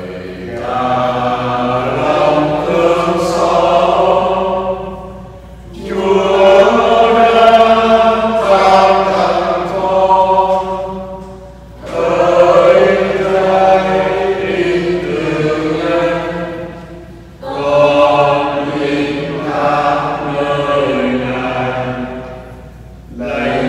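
Slow sacred chant sung by voices, in long sustained phrases of about six seconds with short breaks between them, four phrases in all.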